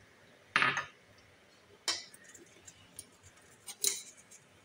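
Spoon scraping and pressing wet tamarind pulp against a steel mesh strainer: three short, sharp scrapes about a second apart, with light clicks between.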